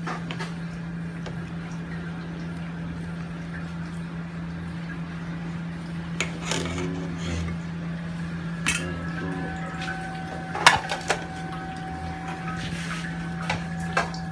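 A metal utensil clinking against a cooking pot a few times, the sharpest clink about eleven seconds in, over a steady low hum.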